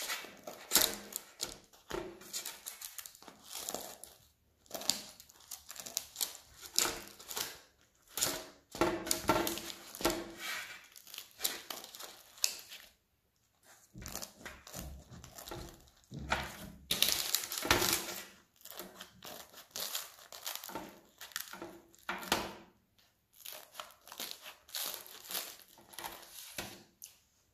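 Kitchen scissors cutting through the crisp golden crust of a baked focaccia in repeated crunching snips, with the baking paper under it crinkling as the pieces are cut and moved. The cutting comes in runs with short pauses between them.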